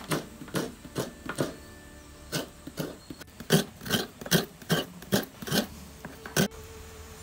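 Coconut half scraped against the serrated metal blade of a traditional seated coconut scraper, in quick rhythmic rasping strokes about two a second, grating out the white flesh; the strokes stop about a second before the end.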